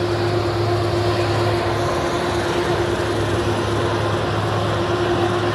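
Heavy diesel trucks' engines running, hauling a heavy load: a loud, steady drone with a constant hum.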